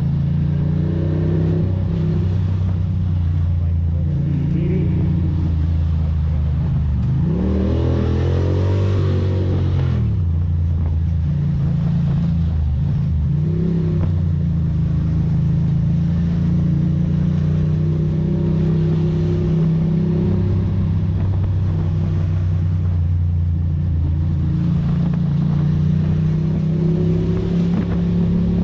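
Ducati Monster's L-twin engine running steadily while riding in traffic, with the engine pitch rising and falling about eight seconds in and a smaller dip and rise near fourteen seconds.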